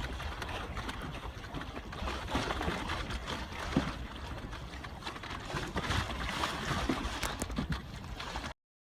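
Water lapping and splashing around a small canoe, with wind rumbling on the microphone; the sound cuts off suddenly near the end.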